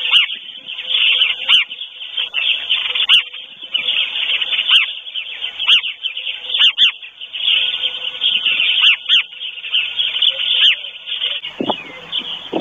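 Dawn chorus of many songbirds: dense overlapping chirps and whistled phrases, with sharp calls every second or so. Near the end the birdsong gives way to a different, lower sound.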